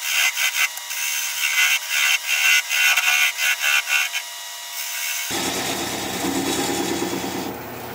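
Bowl gouge cutting live oak on a spinning wood lathe, a fluttering, hissing scrape as the tenon is turned off the base of the bowl. About five seconds in the cutting gives way to a steadier, fuller running sound.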